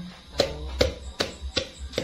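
Heavy pestle pounding spice paste in a stone mortar: steady thuds, about two and a half strokes a second.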